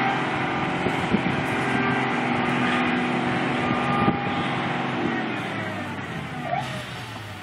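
Heavy farm machinery engine running steadily with mechanical clatter, growing quieter over the last couple of seconds.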